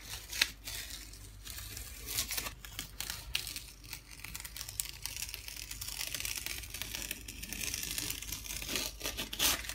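Paper masking tape being peeled off the edges of a painting board, crackling and tearing in an irregular run of small snaps as it comes away; the tape has been left on for a few days and sticks.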